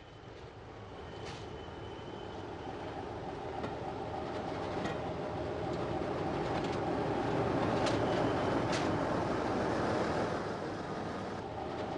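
CIE C-class diesel locomotive hauling a mixed train, getting steadily louder as it approaches and passes below. It is loudest about eight to ten seconds in, then eases off a little, with a few sharp clicks from the wheels over the track.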